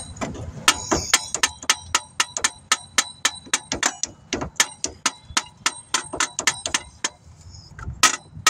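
Metal-on-metal tapping as the new alternator is knocked into its mount on a 2016 Dodge Journey: about three or four sharp strikes a second, each with a brief metallic ring, pausing briefly near the end.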